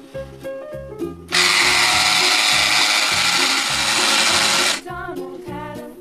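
Toy blender switched on and whirring steadily for about three and a half seconds, then cutting off suddenly, over children's background music.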